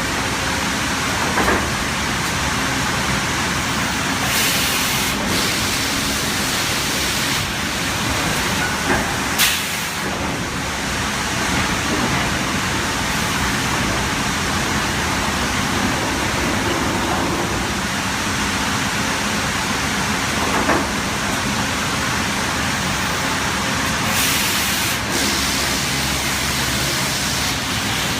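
Sawmill machinery running steadily, with a few sharp knocks and two short bursts of high hiss along the way.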